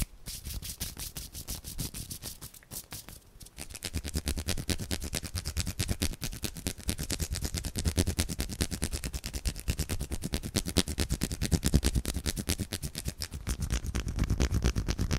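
Hand sounds close to a microphone: palms and fingers rubbing and tapping in quick, even strokes, several a second, louder and fuller from about four seconds in.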